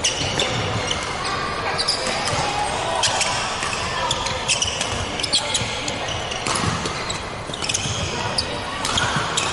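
Badminton rally: repeated sharp racket hits on the shuttlecock and short high squeaks of shoes on the wooden court floor, echoing in a large hall, over background voices.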